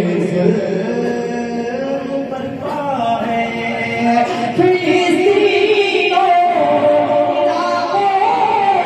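A man singing a naat, a devotional song, into a microphone, drawing out long held notes that slide from pitch to pitch.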